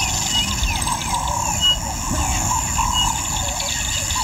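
Daytime African bush ambience: a steady insect drone with a bird repeating a short high whistled note about every second and a half, over a low rumble.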